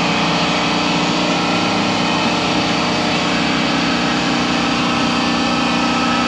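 A motor or engine running steadily at constant speed, a continuous drone made of many steady tones over a fast low pulsing.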